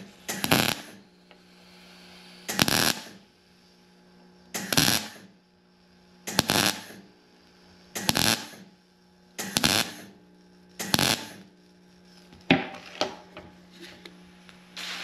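MIG welder laying a series of short tack welds on a steel transmission kickdown band, seven bursts of about half a second each, roughly one and a half to two seconds apart. The welds are kept short so as not to overheat the band's friction material while building weld out into a lip. Near the end come a few light knocks as the welding gun is put down.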